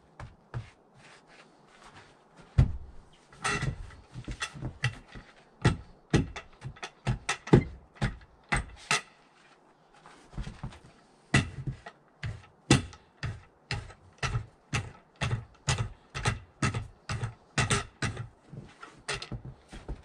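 Sharp metallic clicks and knocks from hand work on a Woodland Mills HM130MAX sawmill's band-blade housing while the blade is changed. The knocks are scattered at first; from about halfway they settle into a fairly even run of two to three a second.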